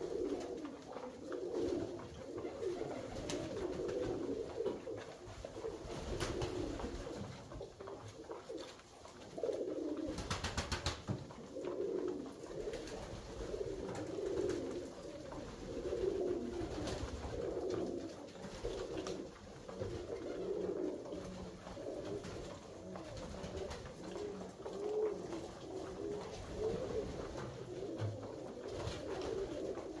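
Several Alföldi-Körösi tumbler pigeons cooing continually, their low coos overlapping, with a quick run of sharp taps about ten seconds in.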